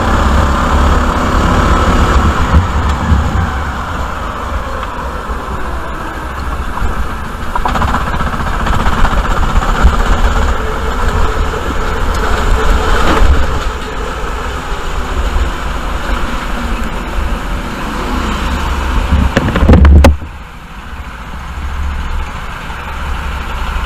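Rental go-kart's four-stroke engine running at low speed on the slow-down after the race, with wind noise on the onboard microphone. Near the end there is a brief loud surge, then the sound drops sharply to a quieter engine idle.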